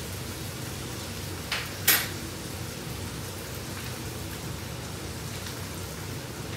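Steak frying in a pan with a steady sizzle. Two sharp clinks come close together about one and a half to two seconds in, the second one louder.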